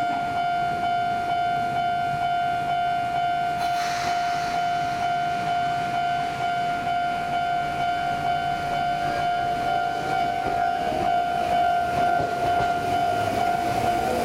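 Sotetsu 9000 series electric train pulling out of a station, with a steady high whine throughout and a short hiss about four seconds in. From about ten seconds in, a second whine rises slowly in pitch as the train gathers speed.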